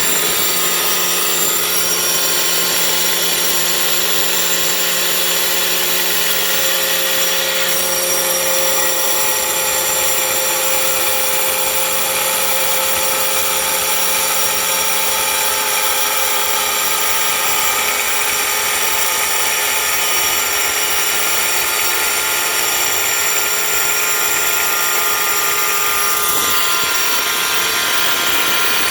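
Mailtank 4-inch marble cutter running steadily at speed, a continuous high-pitched motor whine with a slight shift about 8 and 26 seconds in.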